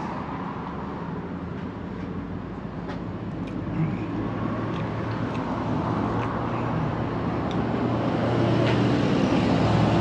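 Road traffic: a motor vehicle's engine running steadily, growing gradually louder toward the end as it comes closer.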